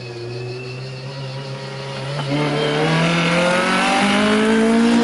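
Race car engine accelerating hard. It grows louder from about two seconds in, and its pitch climbs steadily as it revs up through the gear.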